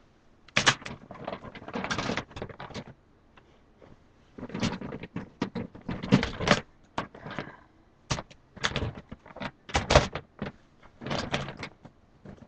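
Plastic action figures clicking, knocking and rustling as they are rummaged through and handled, in three spells of clatter.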